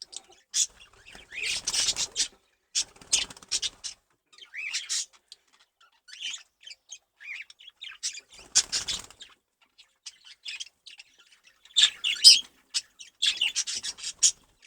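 Budgerigars chattering and squawking in short, irregular bursts of high chirps, with two louder scuffles of flapping wings, about 2 seconds in and again about 9 seconds in, as the males tussle over a female.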